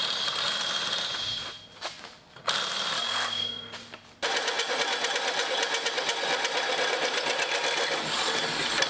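A hand drill spinning a hole saw in a tube notcher, cutting a fish-mouth notch into the end of a steel tube: a steady grinding with fast, even chatter, starting about four seconds in. Before it come two shorter stretches of power-tool cutting noise with a high whine.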